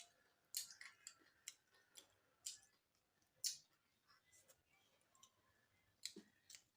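Faint, irregular sharp clicks and ticks from people eating a meal: mouth and utensil noises at the table, about a dozen over a few seconds.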